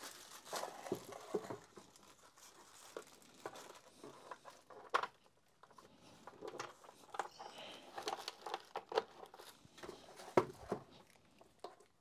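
Handling noise at a workbench: a small plastic bag crinkling, with scattered clicks and knocks as a power adapter is fitted to the base of a Makita cordless fan. The sharpest knock comes about ten seconds in.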